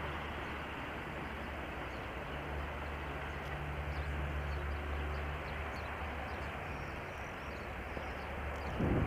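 Steady outdoor background hiss with small birds chirping now and then. Near the end a train's rumble sets in suddenly and loudly as it passes below.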